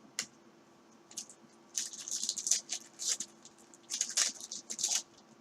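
Topps Chrome baseball cards being slid across one another by hand as a pack is flicked through: a couple of light clicks, then two spells of scratchy rustling about a second and a half each.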